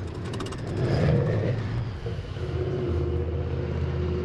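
A steady low mechanical hum like a running engine, with a quick run of rattling clicks and a scraping swell in the first second or so as a part of the diesel heater's exhaust is worked loose.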